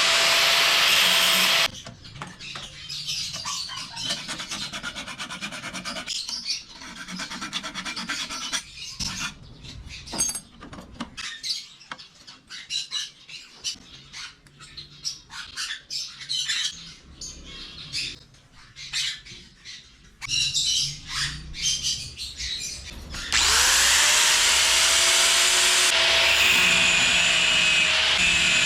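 A handheld electric power tool runs steadily, then stops about two seconds in. For some twenty seconds there are scattered scrapes and clicks of work by hand. Then the motor starts again, rising in pitch as it spins up, and runs steadily to the end.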